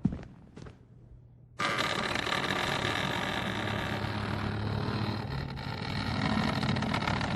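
Two last footsteps, then about a second and a half in a loud, harsh mechanical rattling noise starts suddenly and runs on steadily.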